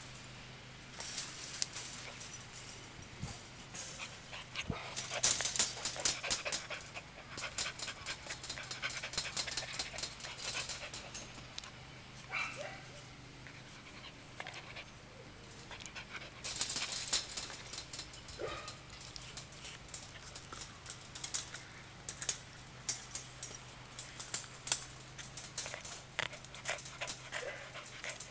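Australian Shepherd puppy moving about close to the microphone: bouts of rapid crackling clicks, with a few short faint pitched sounds between them.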